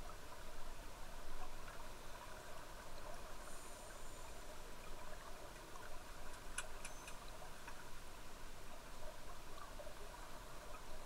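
Underwater ambient noise picked up through a camera's waterproof housing: a steady crackly hiss, with a brief cluster of faint clicks about six and a half seconds in.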